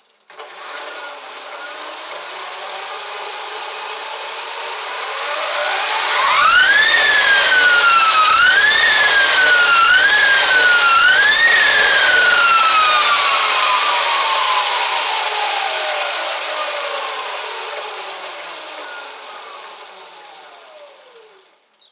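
Lightning Rods big block electric motor driving the lifted rear wheel of an e-bike through a chain, under the steady rush of the spinning chain and wheel. Its whine climbs as power comes on, surges and drops back four times, then falls slowly for about ten seconds as the wheel spins down.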